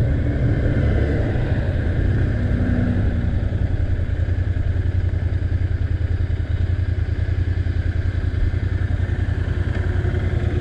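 Royal Enfield Interceptor 650's parallel-twin engine running steadily with a fast, even exhaust pulse.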